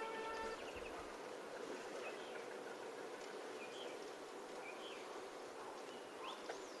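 Small birds chirping faintly now and then over steady outdoor background noise.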